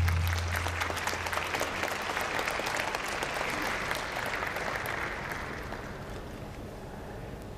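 Arena audience applauding, the clapping building and then slowly fading over the last few seconds. A low boom carried over from just before dies away in the first second.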